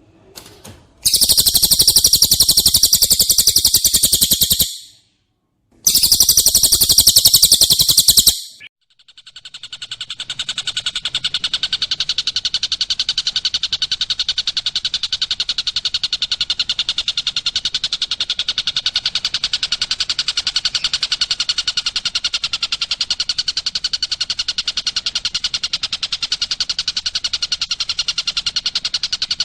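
Songbird masteran recording of cililin and tengkek buto song. Two bursts of very high, rapid chattering come in the first eight seconds, then from about nine seconds in a fast, dense trill that does not let up.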